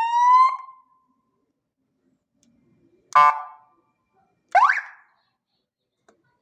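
Police siren horn: a rising wail cuts off about half a second in, then a short flat horn blast comes about three seconds in and a quick upward whoop near five seconds.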